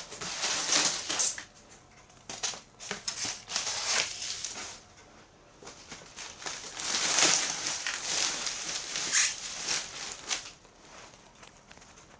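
Packaging being handled: irregular rustling and crinkling in uneven bursts, with a few light knocks.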